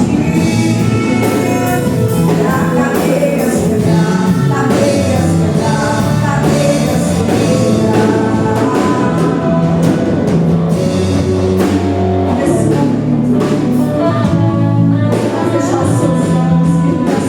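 Gospel worship song with singing over a band, with bass notes and drum hits.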